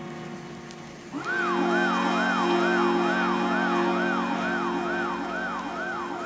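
Dance music track with a siren-like synth wail that comes in about a second in and sweeps up and down quickly and evenly, about two to three times a second, over sustained chords.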